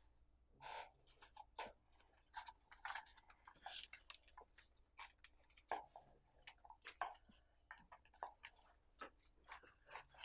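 Faint, irregular scratches, taps and rustles of pencils writing on small paper slips and of the slips being handled and folded.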